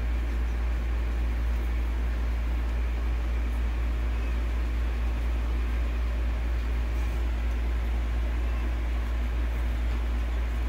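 Steady low hum under an even hiss of background noise, with no clear events.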